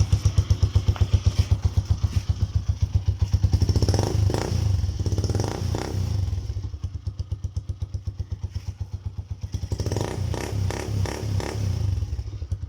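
Honda TMX 125 Alpha's single-cylinder four-stroke engine running through an aftermarket power pipe exhaust: a choppy idle pulse, revved up twice, about four and ten seconds in.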